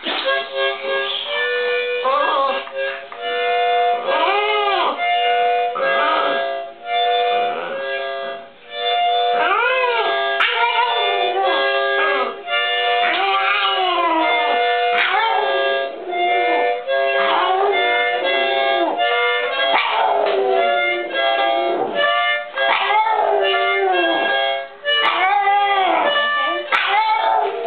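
Boston Terrier howling along to a child's toy harmonica. The harmonica blows held, wavering chords while the dog's howls rise and fall in pitch over them, again and again.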